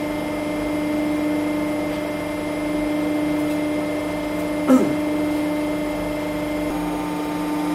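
WC67K 160-ton hydraulic press brake running with a steady, even hum of constant pitch. About four and a half seconds in, a short sound falls quickly in pitch.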